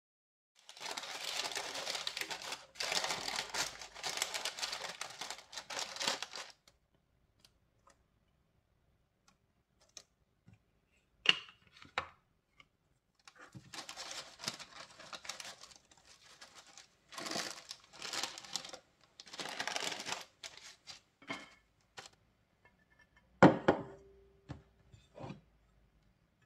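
Parchment paper crinkling and rustling as it is fitted into a metal baking tray. Later, a silicone pastry brush swishes olive oil across the paper in a run of short strokes. Near the end there is one sharp knock with a brief ring.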